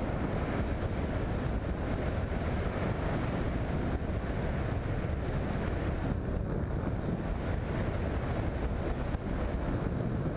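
Steady wind noise rushing over the camera's microphone during a parachute descent under an open canopy.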